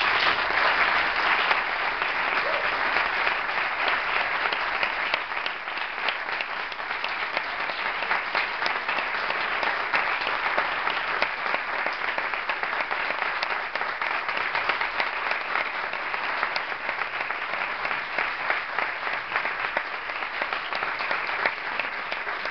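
Audience applauding: a long, even round of clapping from many hands.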